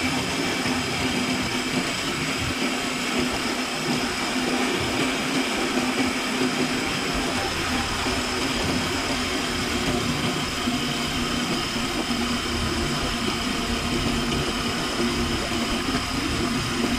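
Steady engine drone and road noise of a moving passenger vehicle, heard from inside it, with a constant low hum.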